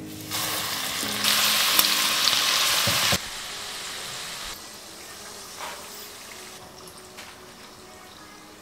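Besan-coated okra deep-frying in hot oil in a black iron karai: a steady sizzle, loudest for about two seconds, that drops sharply about three seconds in to a much fainter hiss that slowly fades.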